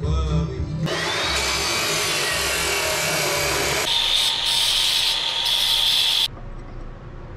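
Abrasive chop saw cutting through steel flat stock, a loud, even grinding noise. About four seconds in a hand-held angle grinder takes over with a high steady whine, which cuts off suddenly near the end.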